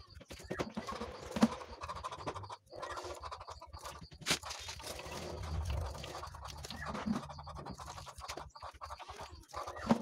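Handling noise from bird cages being moved on a concrete floor: irregular clicks, knocks and scrapes, with a sharp knock about a second and a half in and a louder one a little after four seconds.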